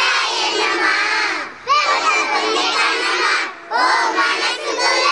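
A group of children shouting a chant together, loud and in unison, in phrases of about two seconds with short breaks between them.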